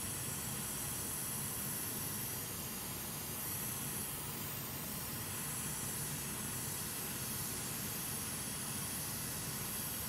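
Hot air rework station blowing a gentle stream of air over freshly applied UV solder mask on a circuit board, a steady hiss; the warm air is helping the mask cure.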